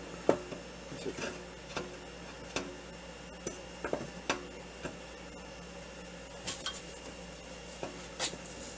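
Small steel parts clinking and tapping: a metal key being handled and tried in a shaft keyway. About fifteen light, irregular clicks and taps, some with a brief metallic ring.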